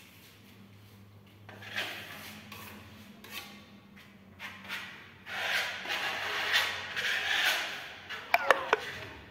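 A hand trowel scraping across a wall as it spreads and blends decorative paint, in two passes, the second longer and louder. A few sharp clicks follow near the end.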